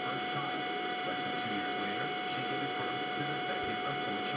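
Steady background hum with several fixed tones, including a high whine, over an even hiss. Faint muffled talk runs underneath.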